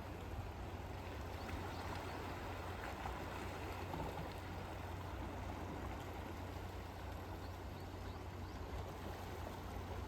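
Steady seaside ambience: sea water washing and gurgling along the shore, with a steady low rumble underneath.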